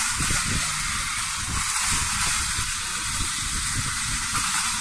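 Battery-powered toy bullet train running along its plastic looping track: a steady whirring, hissing rattle of the small motor and wheels.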